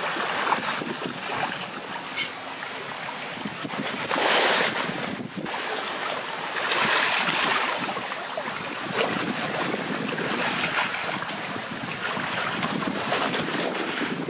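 Sea waves washing onto a rocky shore, with wind on the microphone; the wash swells louder about four seconds in and again around seven seconds.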